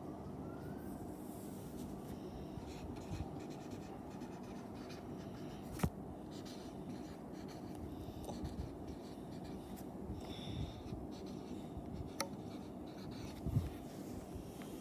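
Marker pen writing on paper, a faint steady scratching as the words are drawn out, with a couple of sharp small clicks along the way.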